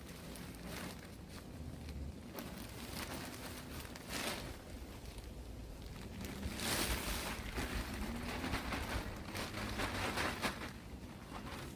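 Mushroom compost being poured out of its plastic bag, loose compost rushing and the bag crinkling in irregular bursts, with the loudest, longest rush about six seconds in.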